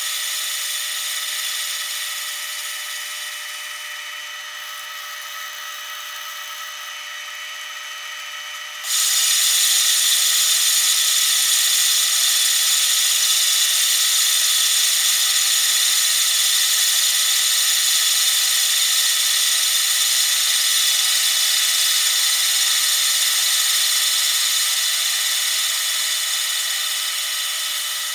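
Metal lathe turning a taper on a metal bar: the machine's steady whine with the hiss of the tool bit cutting metal and throwing chips. About nine seconds in the sound jumps suddenly louder and holds there until near the end.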